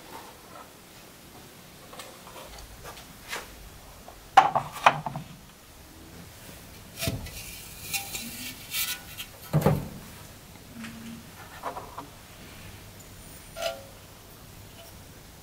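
Hands handling fired terracotta ornaments and a small microwave kiln: scattered knocks and clicks of ceramic set down on wood and against the kiln, the sharpest about four seconds in, with a brief scraping rustle about halfway through.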